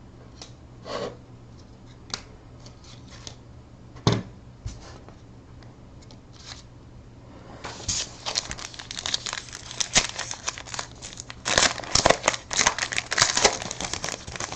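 A few scattered light taps and clicks, then from about halfway a dense crinkling and tearing as a trading card pack's wrapper is torn open and crumpled.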